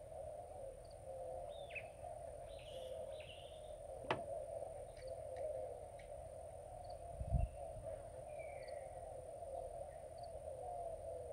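Riverside ambience: small birds chirping now and then over a steady drone. There is one sharp click about four seconds in and a low thump a little past seven seconds.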